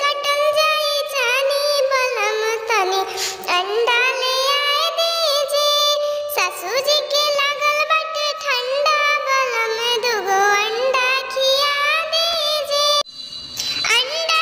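A singing voice pitched up high, like a cartoon character, performing a Bhojpuri jhumar folk song in a wavering, ornamented melody. It pauses briefly near the end, then starts again.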